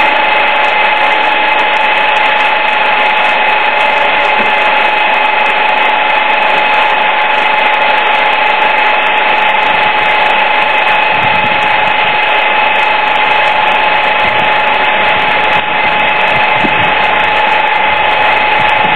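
A machine running with a steady, loud whine and hiss, holding two fixed pitches without change.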